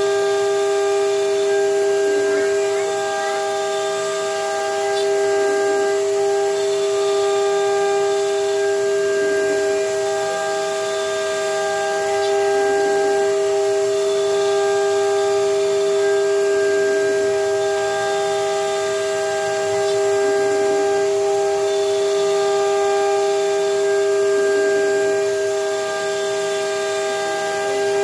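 CNC router spindle running with a steady high whine while its bit mills a pocket in a wooden board, over a hiss of cutting noise. The sound swells and eases every few seconds as the bit moves back and forth along the cut.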